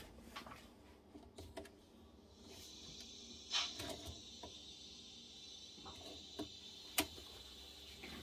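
Faint high whine of a small electric motor on a model railway turntable with a locomotive on its bridge, coming in about two and a half seconds in. Scattered light clicks and taps sound over it, with a sharp click near the end.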